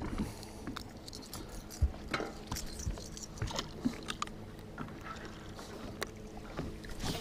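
Scattered clicks and knocks of gear and feet on a fishing boat's deck over a steady low hum, with one louder thump about two seconds in.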